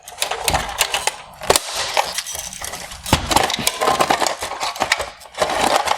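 Rapid, irregular plastic clicking, scraping and crunching as the inner LED unit of a Porsche Panamera headlight is prised off its top mounting bracket and pulled forward inside the housing.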